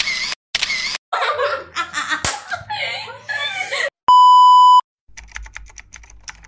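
Girls laughing and chattering, the first second chopped into short repeated bursts. About four seconds in, a loud steady test-pattern beep sounds for under a second, followed by a fast run of typewriter-like clicks as the title comes up.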